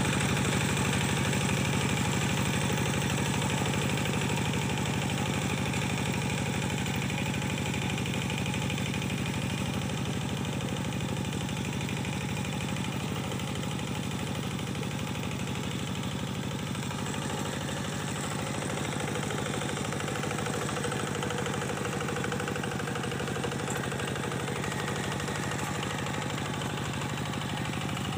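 Kubota diesel engine running steadily while working a paddy-field puddler. The sound eases off slightly over the first half, then holds level.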